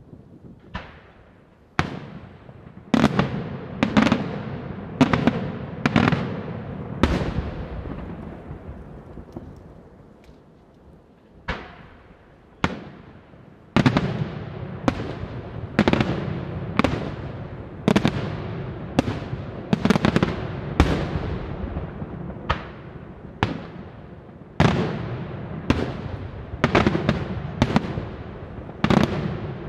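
Aerial fireworks shells bursting overhead in a daytime display: a run of sharp bangs about one a second, each trailing off in a rolling echo. The bangs thin out to a few single ones midway, then resume in a steady string.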